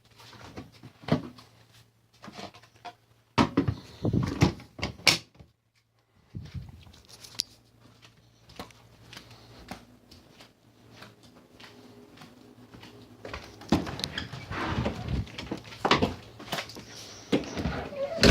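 Scattered knocks, bumps and clatter of things being handled, like doors or cupboards being opened and shut, over a faint low steady hum; everything drops out for a moment about six seconds in, and the handling gets busier near the end.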